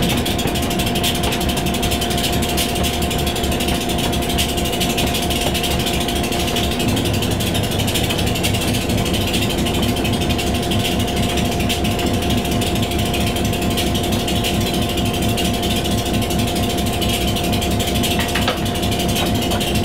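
Diesel locomotive running steadily up close: a constant engine drone with a steady whine over it and a dense mechanical rattle. The low rumble shifts about seven seconds in.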